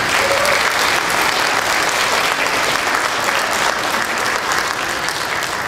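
Audience applauding loudly and steadily as the curtains close at the end of a scene.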